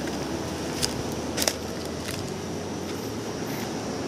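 Steady rush of a flooded, fast-flowing river, with a few short sharp clicks about one and one and a half seconds in.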